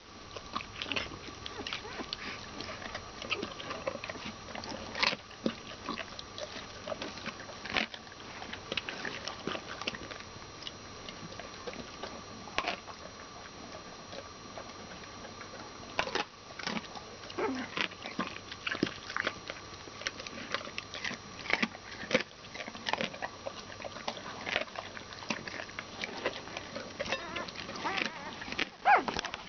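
A litter of newborn Broholmer puppies nursing on their mother, with many scattered short squeaks, grunts and sucking noises.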